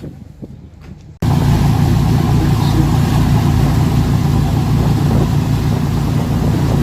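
A few faint clicks, then about a second in an engine cuts in loud and runs steadily with a low, even throb.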